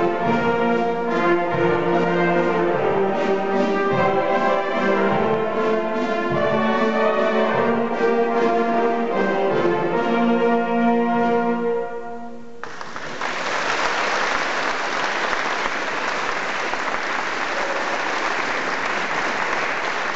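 Brass ensemble playing the close of a piece, ending on a held chord about twelve seconds in; the audience then breaks into steady applause.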